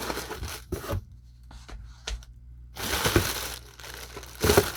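Packaging being handled and unwrapped, crinkling and tearing in three separate bursts with short quiet gaps between.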